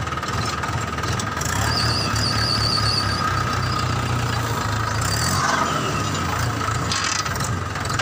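Steady engine-like running sound, like a tractor engine: a low pulsing chug under a thin steady whine, with a short high warbling squeal about two seconds in.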